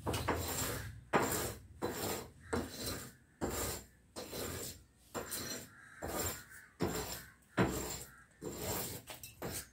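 Repeated rasping, scraping strokes, a little over one a second, each starting sharply and fading.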